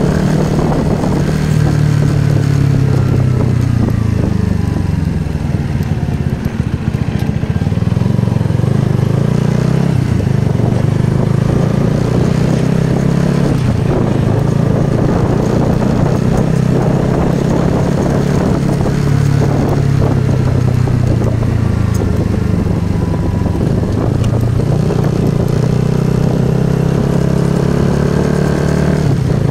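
Motorcycle engine running while riding, its pitch rising and falling with the throttle; it eases off briefly about six seconds in, then picks up again.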